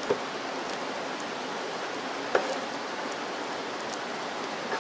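Steady rushing outdoor background hiss, with a brief soft click just after the start and a sharper one a little past two seconds in.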